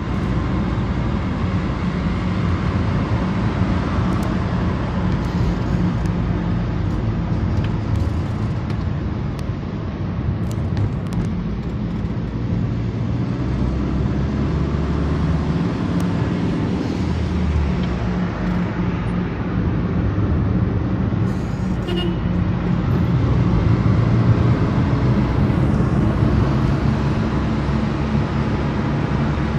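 Motor vehicle running steadily: a low engine hum under continuous road noise.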